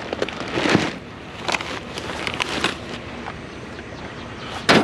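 Knocks, clicks and scraping from a discarded chair being handled and loaded, with one loud knock near the end.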